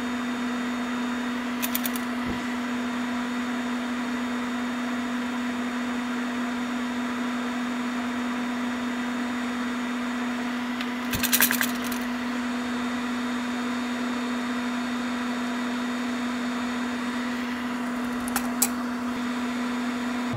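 A small electric fan motor at the soldering bench runs with a steady hum and hiss. A few light clicks come about 2, 11 and 18 seconds in, the one near 11 seconds the loudest.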